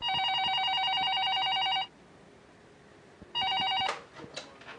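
Telephone ringing with a rapid trill: one full ring of about two seconds, then a second ring cut off after half a second as the phone is picked up, followed by a few clicks of the handset being handled.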